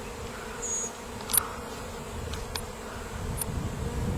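A swarm of honey bees buzzing steadily as they cluster on and fly into a swarm trap. A single sharp click cuts through about a second and a half in.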